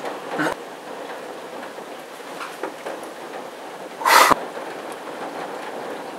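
Steady rain in a thunderstorm, with a short sharp crack about half a second in and a louder, brief crack about four seconds in.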